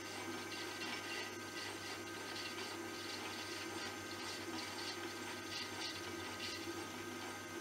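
Hobby lathe-mill combination machine running steadily while turning down a workpiece's diameter, the carriage feeding slowly along the bed. A constant low hum, with light, irregular higher noise on top.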